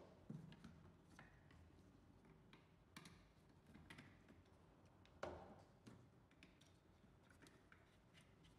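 Faint clicks and knocks of hard plastic parts being handled as a whip Wi-Fi antenna is picked up and fitted to a plastic bullet security camera, with the loudest knock a little past halfway.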